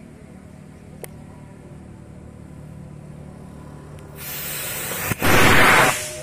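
Homemade potassium-nitrate and sugar rocket motor igniting about four seconds in with a hiss, then a loud rushing roar for under a second that stops sharply. This is the launch on which the motor burst and the flight failed.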